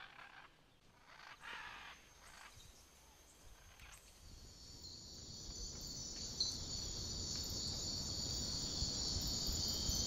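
Night insect chorus of crickets or katydids, a steady high-pitched trilling that fades in about halfway through and grows louder. It follows a few faint, scattered calls.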